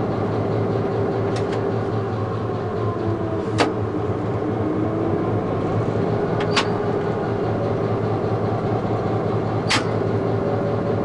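EMD 645E3B turbocharged diesel locomotive engine running steadily, heard inside the cab. Three sharp clicks about three seconds apart come from the throttle handle being moved notch by notch during a power test.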